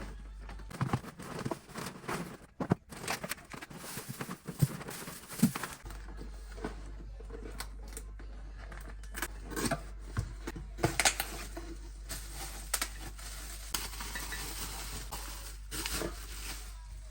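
Handling sounds: packaging rustling and tearing, with scattered light knocks and clicks.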